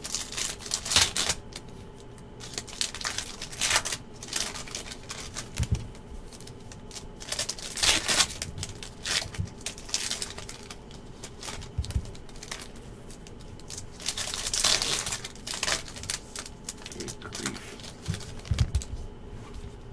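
Foil Panini football card packs crinkling and tearing as they are opened by hand, in irregular bursts of rustling.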